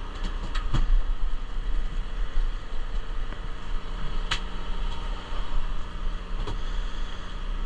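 Boat engine running steadily with a low hum, with a few sharp clicks and knocks on deck.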